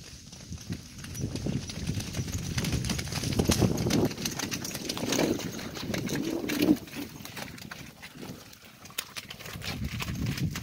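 Hoofbeats of several horses trotting over wet, muddy ground, growing louder as they come up close, then easing off about two-thirds of the way through.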